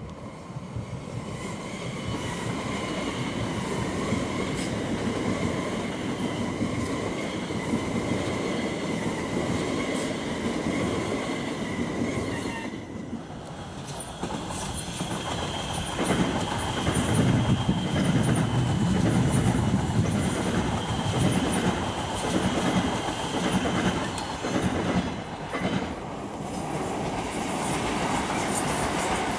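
Two electric multiple-unit trains passing in turn: an Elizabeth line Class 345, then a Heathrow Express Class 387. Each gives a steady high whine over the rumble of wheels on rail, with a short lull between them. The second train is the loudest, about halfway through.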